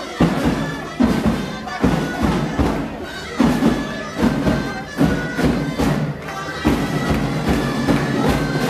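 Traditional street-band music: reed pipes play a held melody over a drum beating steadily, a little more than once a second.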